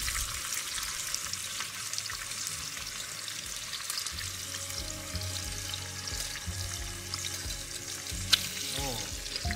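Food frying in hot oil in a pan, a steady sizzling and crackling, with one sharp click about eight seconds in.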